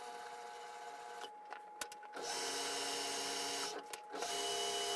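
Small metal lathe running steadily while a tap held in a tailstock drill chuck threads a gunmetal bush. The lathe cuts out twice with clicks, about a second and a half in and again near four seconds, and starts up again each time.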